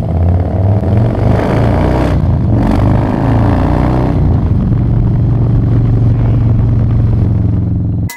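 Harley-Davidson Low Rider S's air-cooled V-twin (Screamin' Eagle Twin Cam 110) under way: the revs climb and shift through the first few seconds, then settle into a steady cruise from about halfway through.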